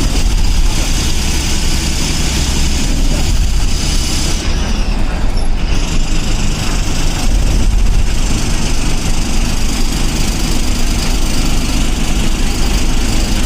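Diesel engine of an Eicher bus running steadily, heard from inside the driver's cabin as a low rumble under constant road and cabin noise.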